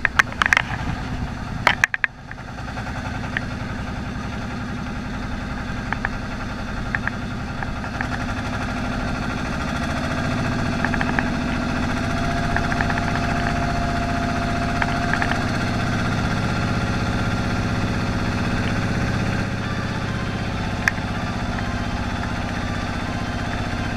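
Fishing boat's engine running steadily, a little louder from about ten seconds in, with a few knocks near the start.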